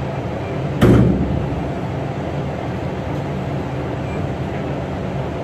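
An engine running steadily, with a single loud clunk a little under a second in.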